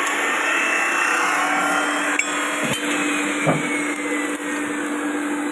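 A motor-driven tool running steadily with a constant hum, with a few short knocks between about two and three and a half seconds in.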